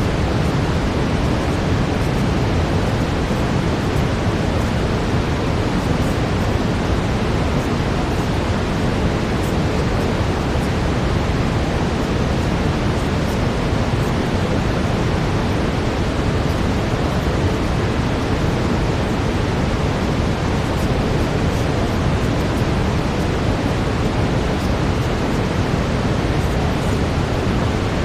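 Steady brown noise: an even, unbroken rushing hiss, heaviest in the low end and thinning out toward the highs.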